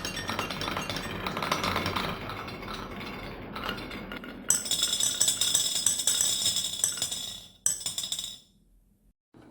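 Marbles rolling and clattering down a HABA wooden marble run. About halfway through, a bright ringing clatter as they drop and clink into a glass bottle, with one last sharp clink near the end.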